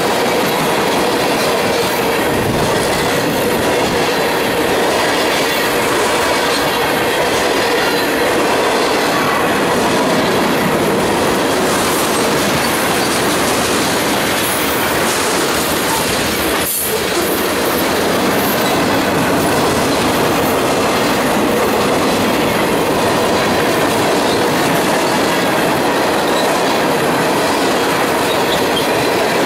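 A freight train of tank cars rolling past at close range, a steady loud rumble and clatter of steel wheels on the rails with a thin steady squeal from the wheels. The sound dips briefly a little past halfway.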